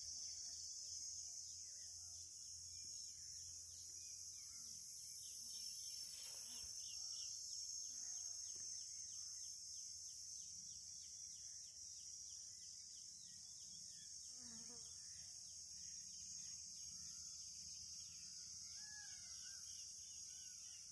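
Faint outdoor dawn chorus: several kinds of birds give scattered chirps and calls over a steady high insect drone. Through the middle a fast, evenly repeated ticking call runs, a few ticks a second.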